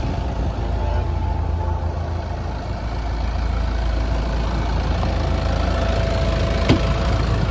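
Diesel truck engine idling steadily, a low even rumble, with one sharp click near the end.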